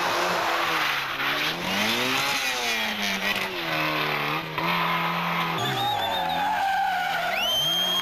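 Rally car engine revving up and down repeatedly through its gears on a night stage. After about five and a half seconds it changes to a Trabant's two-stroke engine, and near the end comes a long steady tyre squeal as the car corners on tarmac.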